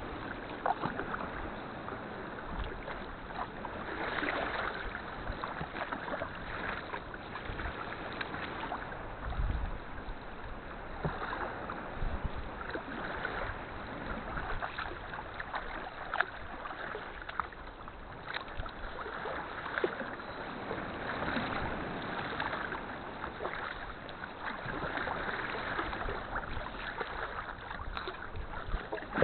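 Sea kayak paddling: the paddle blades dip and splash in the sea, with water lapping and trickling along the hull and the odd knock, the splashing swelling and easing every few seconds.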